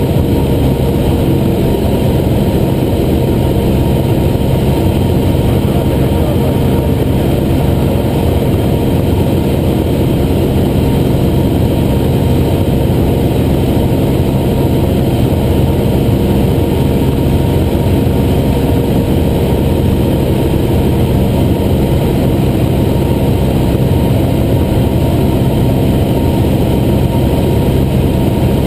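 Cessna 175's piston engine and propeller running at a steady cruise power in flight, a constant even drone heard from inside the cockpit.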